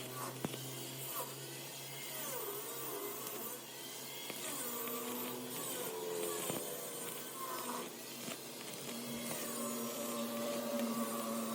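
Lathe running under power, a steady motor hum with shifting, gliding higher tones over it.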